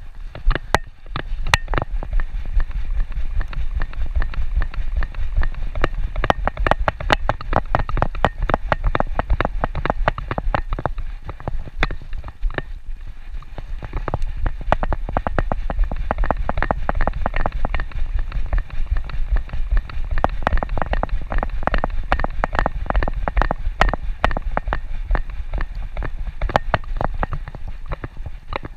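A dog walking on a concrete sidewalk with a GoPro strapped to its back: a rapid, uneven run of clicks and knocks from its steps and the camera mount jostling with each stride, over a low rumble of handling noise.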